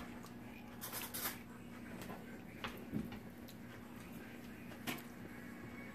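Wooden spoon stirring a thick cream cheese and egg mixture in a plastic bowl, with a few short knocks of the spoon against the bowl, about a second in, near three seconds and near five seconds. A faint steady hum runs underneath.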